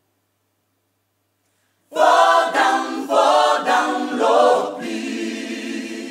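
Near silence for about two seconds, then a gospel choir comes in singing in harmony: a few short sung phrases, then a held chord near the end.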